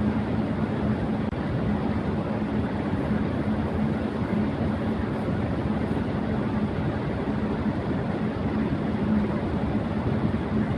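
Electric fan running at high speed: a steady whooshing rush of air with a low steady hum underneath.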